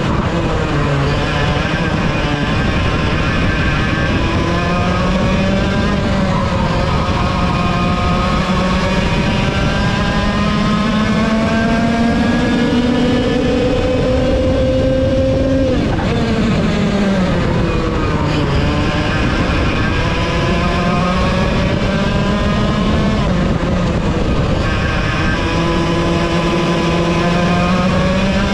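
Onboard sound of a racing kart's 100cc two-stroke engine at full race pace. Its revs climb steadily and then drop sharply off the throttle, about four times, with other karts' engines running close by.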